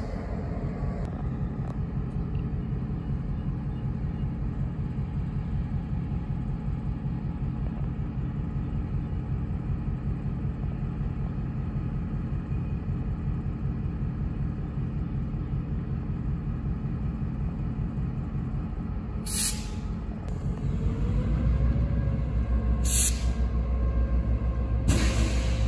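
Diesel locomotive idling, a steady low rumble. Near the end come three short, sharp hisses of air, and over the last few seconds the engine gets louder with a rising whine as it loads up.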